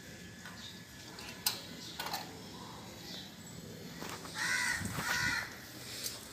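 A crow cawing twice, two harsh calls back to back about four seconds in. A sharp click comes about a second and a half in.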